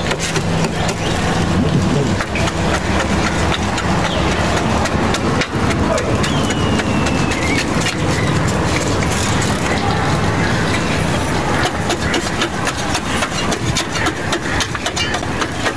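A steady motor drone runs throughout, with many small clicks and scrapes from a hand trowel digging into hard, dry potting soil in clay pots.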